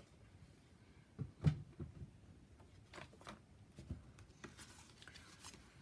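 Pieces of cardstock being handled, shuffled and tapped down on a work mat: a run of soft taps and paper rustles, the loudest about one and a half seconds in.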